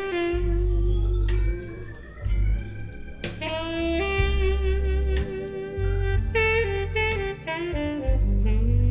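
Instrumental opening of a jazz song, a held lead melody over deep bass notes, played back through Marten hi-fi loudspeakers.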